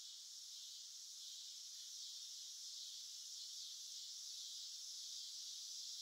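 Steady, faint chorus of insects trilling in a continuous high-pitched hiss.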